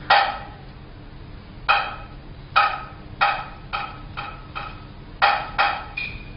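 Chinese opera gong-and-drum percussion playing about ten sharp, briefly ringing strokes. The strokes come unevenly: two spaced apart, a quicker run in the middle, and three close together near the end, accompanying movement on stage.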